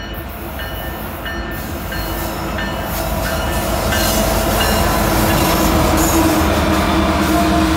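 Lead diesel locomotives of a freight train, an EMD SD70ACU followed by a GE AC44CW, passing close by with their engines running and a steady rumble of wheels on rail. The sound grows louder as they come alongside.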